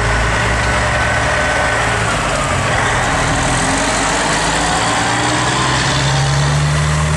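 Log truck's diesel engine running steadily, with a faint whine that rises slowly in pitch through the middle. The low engine note grows stronger over the last couple of seconds.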